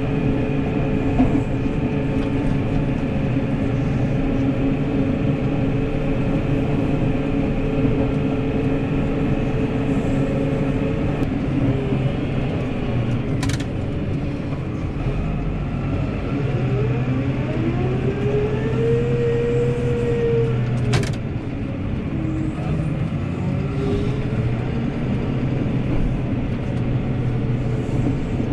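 New Holland tractor's diesel engine running steadily while driving with a front snow plough. Near the middle a whine rises and then falls, and there are two sharp clicks.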